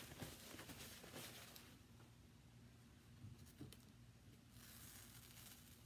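Near silence: faint rustling and rubbing of hands, in one stretch at the start and another near the end, over a low steady room hum.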